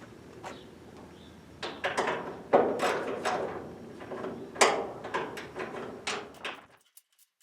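Metal clanks and knocks from tools and hood hardware while the hood is bolted on. The two hardest knocks come about two and a half and four and a half seconds in, and the sound cuts off abruptly near the end.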